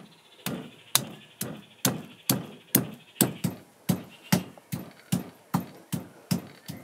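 Stone pestle pounding garlic cloves in a heavy stone mortar: a steady run of sharp knocks, about two and a half a second.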